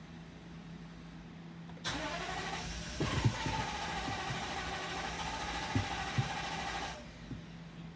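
Car engine cranking on its starter motor for about five seconds, the starter whine rising and then holding steady, with a few low knocks. It stops suddenly without the engine catching: a crank-no-start condition, where the engine turns over but will not fire.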